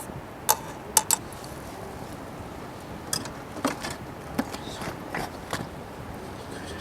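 Sharp clicks and knocks of objects being handled, three loud ones in the first second or so, then softer, scattered ones over a steady low hiss.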